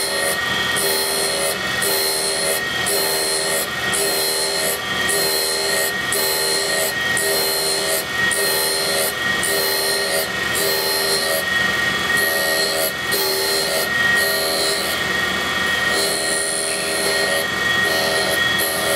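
Deckel SO cutter grinder's wheel running with a steady whine while grinding relief onto a single-lip cutter. The grinding rasp pulses about twice a second as the cutter is turned against the wheel.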